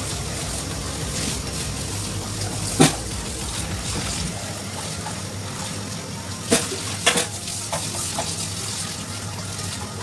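Kitchen knife cutting along a wet queen fish on a plastic cutting board: steady wet scraping with a few sharp knocks of the blade on the board, one about three seconds in and a quick cluster between six and eight seconds.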